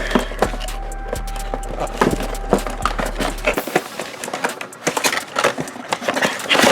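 Cardboard and plastic toy packaging being handled, rustling and crinkling with scattered clicks and taps as a large action figure is worked out of its box.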